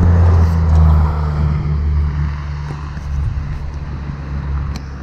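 A motor vehicle's engine droning close by, loudest at first, then sinking slightly in pitch and fading as it moves away.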